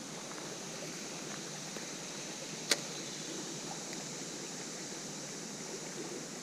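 Steady rush of flowing creek water, with a single sharp click about two and a half seconds in.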